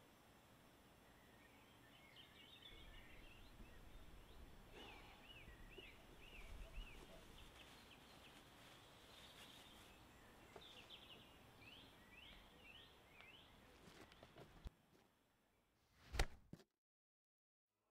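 Wild birds singing in woodland, many short repeated chirps over a faint low rumble of outdoor ambience. Near the end the birdsong drops away and a short rising swell ends in one sudden loud hit, after which the sound cuts to dead silence.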